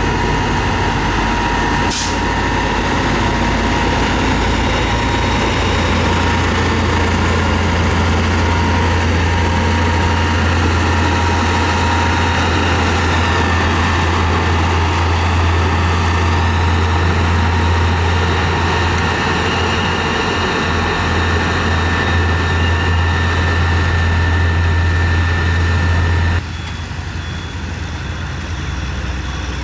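Heavy diesel engine of a road-building machine running steadily, with a sharp click about two seconds in. The sound drops abruptly in level a few seconds before the end.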